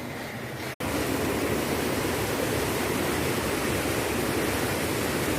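Waterfall: a steady, loud rush of falling water that starts abruptly after a brief cut a little under a second in. Before the cut there is a quieter steady hiss.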